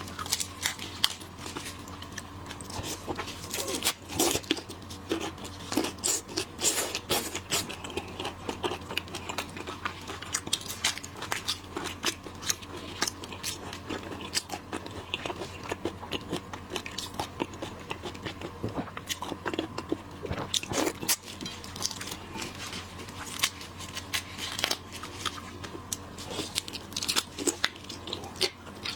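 Seafood being eaten close to the microphone: crunching, biting and chewing of shrimp and oysters, with many sharp crackles and clicks.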